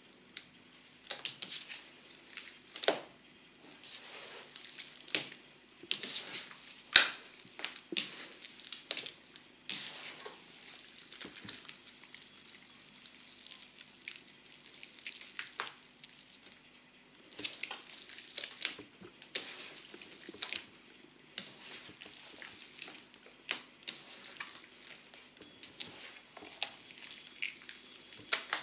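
Large guar-gum 'water jiggly' slime, made without glue, being stretched, folded and squeezed by hand. It gives irregular wet crackles and pops, with a faint steady hum underneath.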